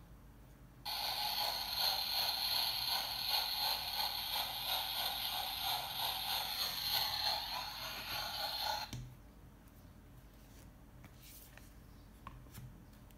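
Steam train chugging sound effect played through a children's sound book's small built-in speaker, set off by pressing its train button: a rhythmic chuffing that starts about a second in and cuts off abruptly about nine seconds in. A few faint clicks from handling the book follow.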